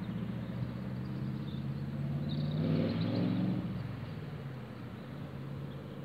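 Sports car engine passing by: a low, steady drone that swells to its loudest about three seconds in, then fades.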